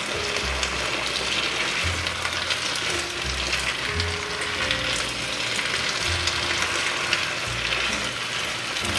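Diced potatoes with onion and garlic sizzling steadily in melted butter in a nonstick skillet, stirred and turned with a plastic slotted spatula.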